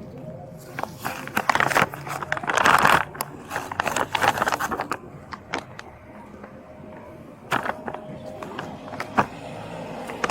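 Rustling and scraping handling noise at close range, dense for a few seconds and then thinning out, with a few sharp clicks near the end.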